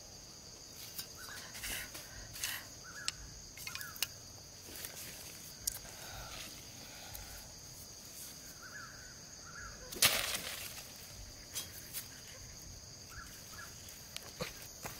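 Scattered clicks, taps and rustles of bamboo sticks being handled and set on dry sandy ground, with one sharper knock about ten seconds in. A steady high-pitched insect buzz runs underneath, with a few faint bird chirps.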